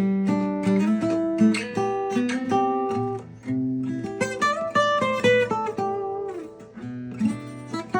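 Seagull S6 Folk acoustic guitar played fingerstyle: a picked melody of single notes over ringing bass notes and chords, with a quick run of notes around the middle.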